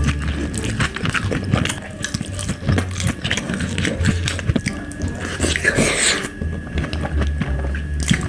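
Close-miked eating sounds: chewing and biting on food, with many quick wet mouth clicks and a longer, louder noisy stretch about two-thirds of the way through.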